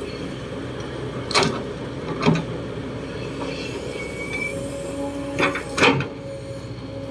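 Kobelco SK200-8 excavator's diesel engine and hydraulics running under load as the bucket digs into soil, with a steady hydraulic whine. Four sharp clanks from the bucket and arm, two close together about a second and a half in and two more near the end.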